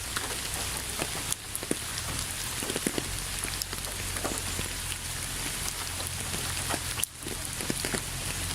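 Steady rain falling: a dense hiss with many separate drops ticking on a hard surface, over a low steady rumble.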